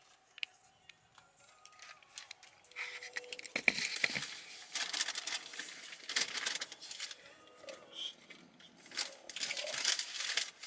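Takeout bag and food wrappers rustling, crinkling and tearing in irregular bursts as the food is unpacked, starting about three seconds in.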